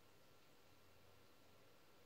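Near silence: faint steady room tone with a thin, steady high whine.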